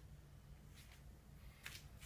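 Near silence: room tone with a faint low hum, broken by two brief soft rustles, one a little under a second in and one near the end.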